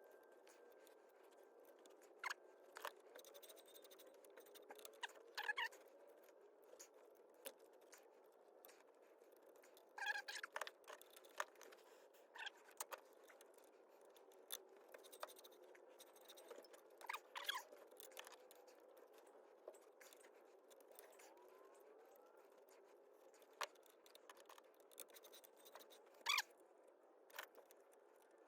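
Faint, scattered metallic clicks and scrapes of hand wrenches working nuts on the parking-brake linkage, with near silence between them.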